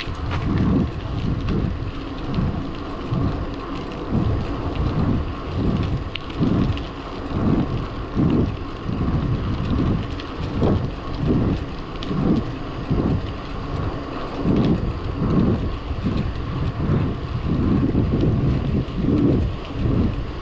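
Wind buffeting the microphone of a camera carried on a moving bicycle, in low gusts that come about every two-thirds of a second.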